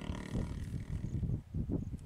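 Young elephant making a low rumbling groan that comes and goes in uneven surges.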